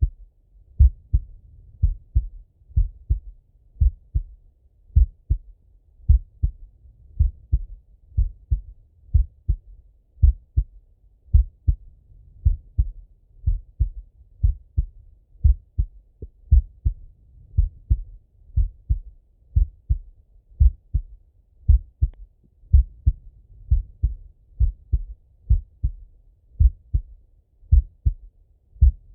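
A man's slow, steady heartbeat heard through a Littmann stethoscope: a regular lub-dub double thump about once a second.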